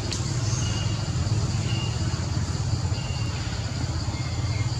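A steady low motor hum throughout, under a constant high insect drone and a few short, thin, high chirps.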